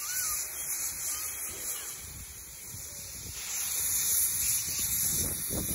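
Steam locomotive venting steam from its cylinder drain cocks: a steady hiss that swells louder about three and a half seconds in, over a low rumble.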